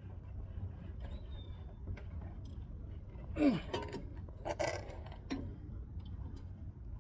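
Hand tools clinking and scraping on steering parts while a stuck outer tie rod is worked back and forth, with a few louder short sounds about halfway through over a steady low hum.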